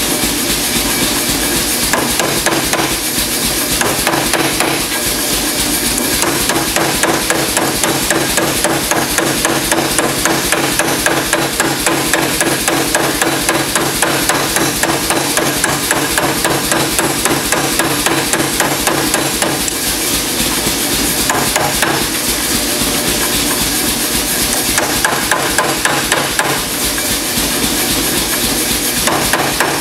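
Power hammer ram striking red-hot mild steel in a rapid, steady run of blows, drawing out the bar through the tooling dies.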